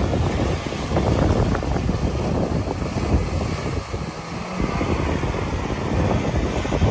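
A Honda CR-V wading through knee-deep flood water, its engine running as the water churns and splashes around its wheels, with wind buffeting the microphone. The sound stays fairly steady, dipping briefly about four seconds in.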